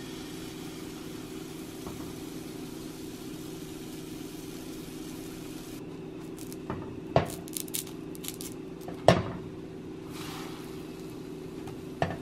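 Pancake batter sizzling in an oiled nonstick frying pan over a steady low hum, then a plastic spatula clicking and knocking against the pan as the pancakes are turned, with the sharpest knocks about seven and nine seconds in and another near the end.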